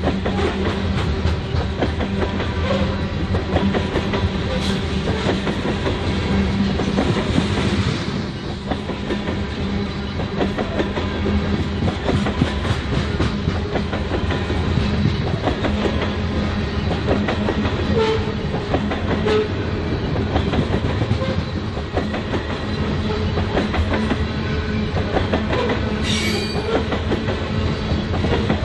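Freight train of BNSF covered grain hopper cars rolling past close by: a steady rumble of steel wheels on the rails with a continuous clickety-clack.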